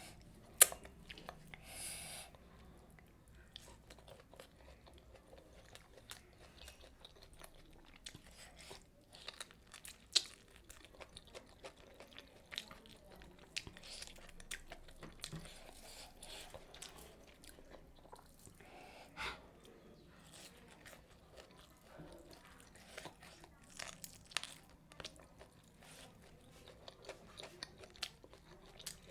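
A person chewing and crunching food close to the microphone: crisp bites and wet mouth sounds with many short clicks scattered throughout. The sharpest, loudest click comes about half a second in, and another about ten seconds in.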